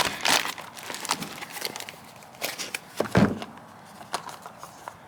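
Spare car parts being handled and unwrapped: packaging rustling with light clicks and knocks, and a heavier thump about three seconds in.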